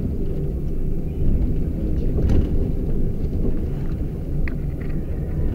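Low, steady rumble of a vehicle, with a single brief click about two seconds in.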